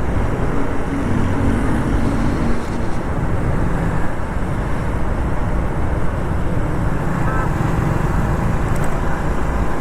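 Steady motorcycle riding noise, engine and wind rushing together, picked up by a small clip-on lavalier mic while on the move.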